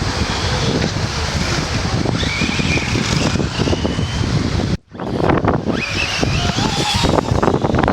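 Remote-control race cars running laps, their motors giving a high whine that rises and falls, with wind on the microphone. The sound drops out briefly about five seconds in.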